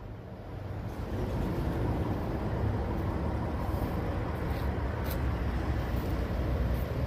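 Steady low engine rumble, growing a little louder over the first second, then holding even.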